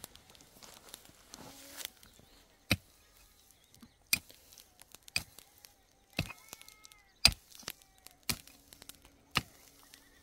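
Pickaxe striking dry, dusty earth: about seven sharp blows roughly a second apart, beginning a little over two seconds in.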